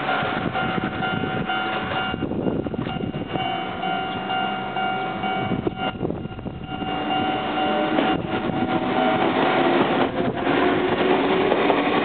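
Japanese level-crossing alarm ringing steadily, with strong gusty wind buffeting the microphone. In the last few seconds an Enoden train comes up and runs into the crossing, its rumble growing louder.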